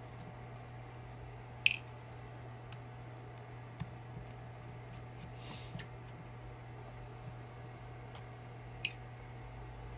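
Small clicks and clinks of a precision screwdriver and tiny screws at the metal bayonet mount of a Nikon DX 18-55mm lens as the base screws are backed out. Two sharp clinks, one about two seconds in and one near the end, are the loudest, with a brief rustle in the middle, over a steady low hum.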